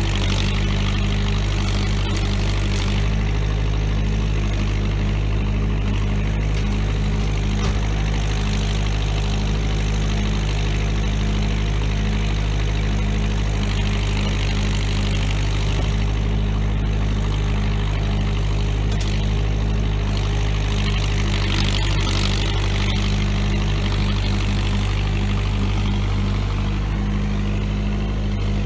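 Bobcat 943 skid steer's four-cylinder Perkins diesel engine running steadily.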